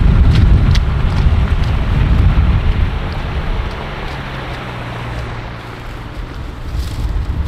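Off-road 4x4 engine running as the vehicle works through a deep pit, with wind buffeting the microphone and a few knocks in the first second. After about four seconds the rumble eases into a steadier engine hum.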